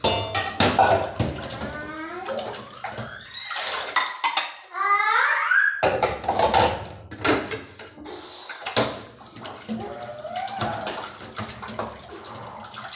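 Dishes, pots and cutlery clinking and knocking in a stainless steel sink as they are washed by hand, with water splashing. A few high, wavering calls rise and fall near the middle.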